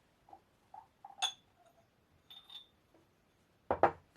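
Small ceramic pieces clinking and knocking as they are handled and set down: a few light taps, a bright ringing clink about a second in, and two louder knocks close together near the end.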